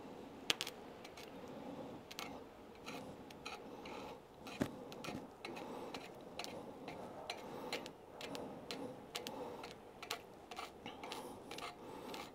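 A 2.6 mm stick-welding electrode scratched and tapped against 3 mm steel plate, making a run of faint, irregular clicks and scrapes. With only a single 12 V battery behind it, the rod cannot strike an arc.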